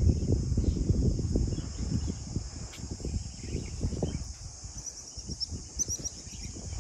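Wind gusting on the microphone, strongest in the first few seconds, over a steady high-pitched insect drone. About five seconds in, a bird starts a quick run of short high chirps.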